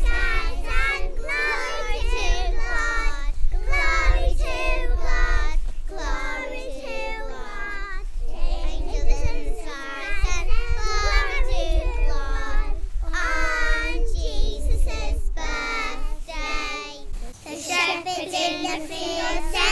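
A group of young children singing together, phrase after phrase with short breaks between lines.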